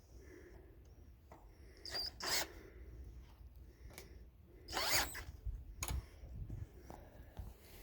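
Hand work on gate hardware: scattered clicks and scrapes of a driver bit, screws and latch being handled, with a few short rasping scrapes about two seconds in and near five seconds.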